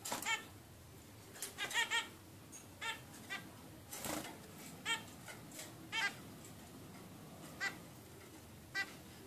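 Zebra finches calling: short calls every second or so at irregular intervals, with a quick cluster of several about two seconds in.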